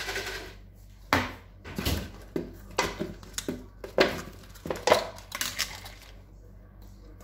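Kitchen dishes and utensils clattering: a quick run of sharp knocks and clinks, some of them ringing briefly.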